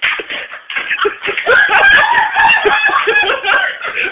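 People laughing and talking excitedly, in quick, choppy bursts of voice.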